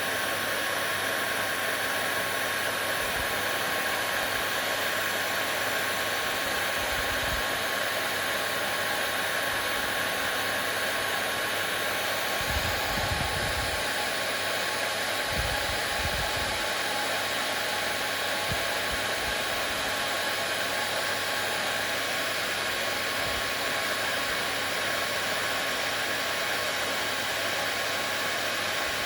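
Hair dryer running steadily: an even rush of air with a faint steady whine and a low hum underneath.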